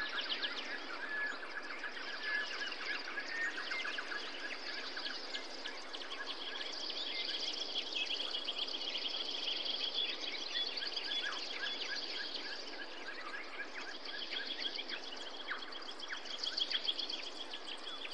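Outdoor bush ambience: several small birds chirping and trilling in fast repeated notes over a steady background hiss.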